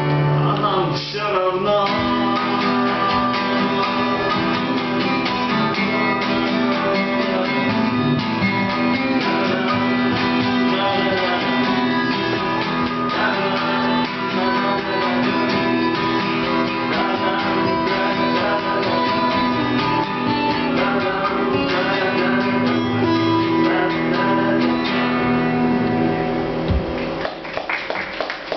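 Two acoustic guitars playing an instrumental passage of a folk-rock song, strummed and picked together. The playing thins out near the end as the song closes.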